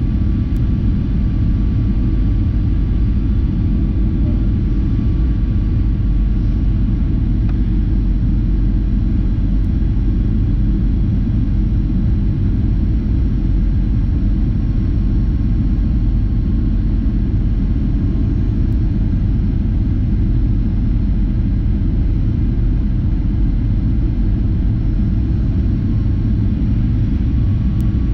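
Steady low rumble of engine and airflow noise from a Boeing 737-800 descending on final approach, with its CFM56-7B turbofans at low thrust.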